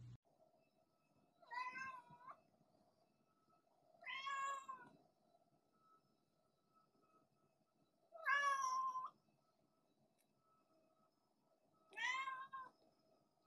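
A domestic cat meowing four times, a few seconds apart, each meow short and clear.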